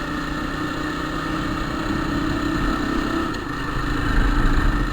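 Motorcycle engine running under way in third gear, with a steady droning growl from the gearbox. The owner puts the growl down to a replacement third-gear cog fitted in the gearbox repair, and says the other gears are smooth.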